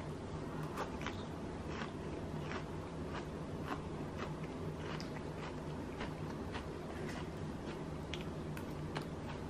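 Steady low room hum with faint, irregular small clicks, roughly two a second.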